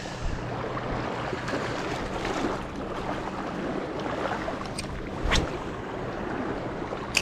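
Small waves lapping on a pebbly lakeshore, with wind on the microphone. A brief knock comes about five seconds in.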